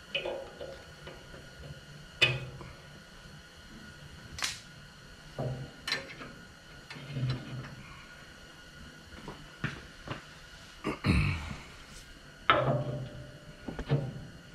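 Scattered metal clicks and knocks, with a few duller thuds, as a retaining key is pulled from a steel pin with pliers and the loader support bar is handled against its bracket. The loudest knocks come in the last few seconds.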